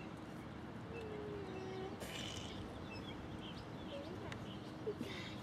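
Faint outdoor background with scattered short bird chirps.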